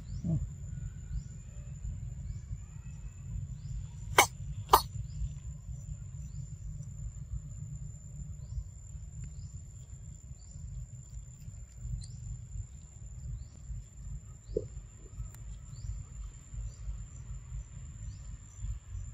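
Forest insects keep up a steady high drone, with short falling chirps about once a second, over a low rumble. Two sharp clicks come about four seconds in, and a brief low cough-like sound near the fifteenth second.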